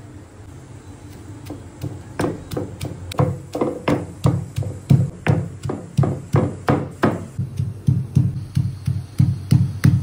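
Stone pestle pounding peanuts, garlic and green chillies in a stone mortar: a rhythmic knock of stone on stone and crushed nuts, about two or three strikes a second, starting about two seconds in.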